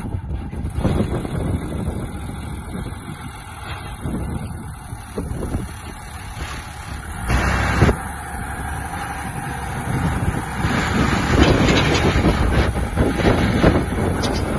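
John Deere 2950 tractor's six-cylinder diesel engine running, with a short burst of noise about seven seconds in and louder running over the last few seconds.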